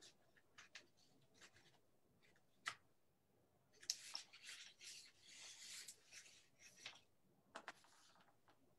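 Near silence with faint scattered clicks and a brief rustling, scraping noise about four to six seconds in.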